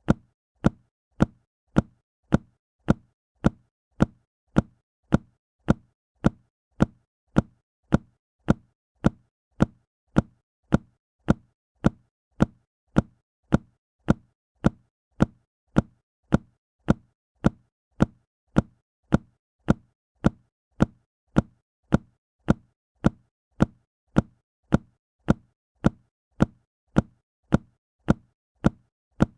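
A book dropped flat onto a hard surface: one short, sharp thud, repeated identically about every half second as a looped sound effect.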